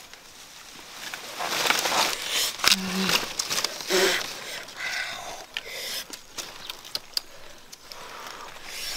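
Dry banana leaves rustling and crackling as a bunch of bananas is handled and fruit is broken off it, loudest in the first half, followed by scattered small snaps and clicks; a couple of short low voice sounds come near the middle.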